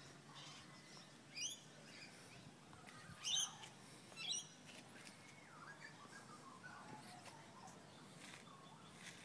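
Birds calling: three short, sharp rising chirps in the first half, the middle one the loudest, then quieter warbling calls.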